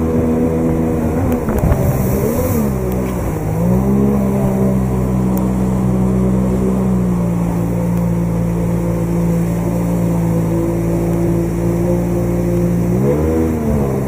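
Outboard motor on an inflatable boat running hard against whitewater as the boat climbs a rapid. Its revs dip and pick up again twice, a couple of seconds in and near the end, and hold steady in between, over the rush of the rapid.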